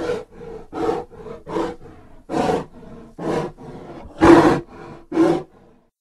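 Tarbosaurus roar sound effect: a rapid series of short, growling calls, about one every 0.8 seconds, the loudest about four seconds in, stopping shortly before the end.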